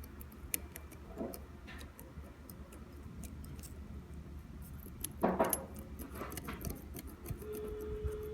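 Mercedes W212 brake pad being rocked by hand in its caliper: light metallic clicks and rattles, with a louder clatter about five seconds in and a short steady squeak near the end. The pad sits loosely, poorly held in place, which is the cause of the knocking and whistling over bumps.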